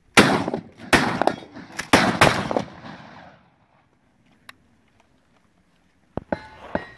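Short pump-action shotguns firing on a firing line: four or five loud blasts in quick, uneven succession, each with a ringing echo. After a few seconds' pause, another sharp report comes near the end.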